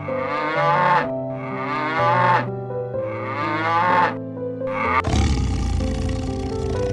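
An animal calling three or four times in drawn-out calls that bend in pitch, over background music; about five seconds in, the calls give way to a rougher, noisier low sound.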